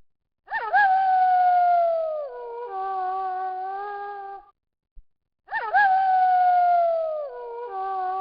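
Wolf howling, the same howl heard twice about five seconds apart. Each starts with a quick upward swoop into a long note that slowly sinks, then drops to a lower, steadier note.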